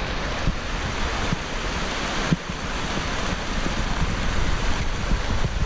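Wind blowing across the camera microphone: a steady rushing with low buffeting rumble, and one brief knock a little over two seconds in.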